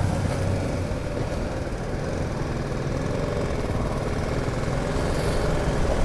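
BMW GS motorcycle engine running steadily at low speed, an even hum with no revving.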